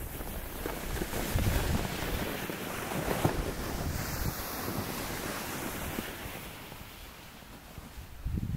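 Wind buffeting the microphone, with a loaded plastic sled hissing over snow and crunching footsteps passing by, fading over the last couple of seconds.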